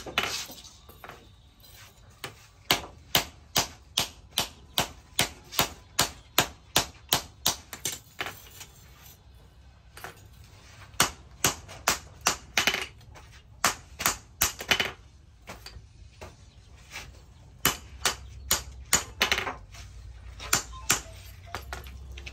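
Hand hammer striking a red-hot axe blade on a cylindrical iron post anvil, forging out the hot edge. Sharp metal-on-metal blows come in quick regular runs of about three a second, with short pauses between runs.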